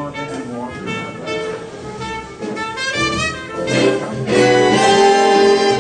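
Recorded music, sustained instrumental notes, played back through Leonardo planar magnetic loudspeakers driven by a 14-watt-per-channel Tube Guru 6C33C single-ended tube amplifier; it swells louder about four seconds in.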